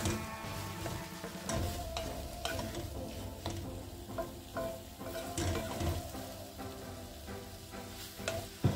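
Spatula scraping and tapping against a metal pan as chopped boiled potatoes are stirred through a frying masala, with a light sizzle. Repeated strokes come every half second to a second, with a sharper knock near the end.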